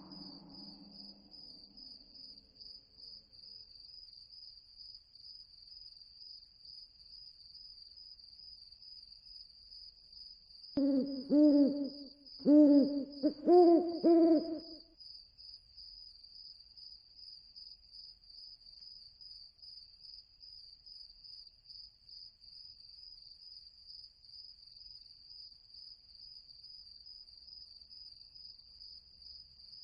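Night-ambience sound effect: crickets chirring in a steady, fast-pulsing high trill throughout, with an owl hooting a short run of several low hoots partway through.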